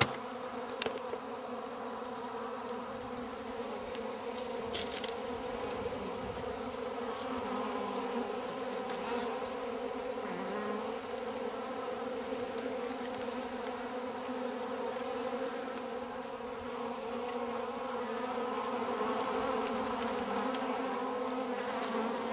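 Many honeybees buzzing around a tray of wax cappings, a steady drone of wingbeats, with one sharp click just under a second in.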